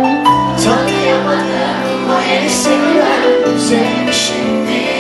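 Live pop band music with a male vocalist singing into a stage microphone over held chords and cymbals.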